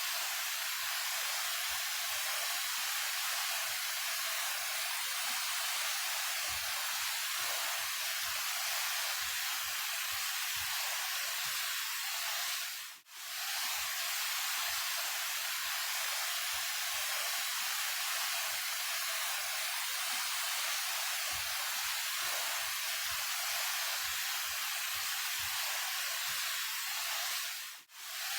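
Daehye Falls, a 28 m waterfall, rushing steadily. The sound drops out briefly twice, about halfway through and again near the end, at the joins of the repeated recording.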